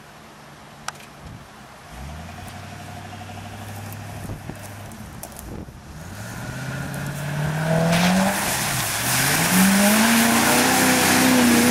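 Truck engine starting to pull, then revving up hard as the truck drives into mud. The revs climb, drop briefly for a moment, then rise again and hold high over the noise of spinning tyres throwing mud.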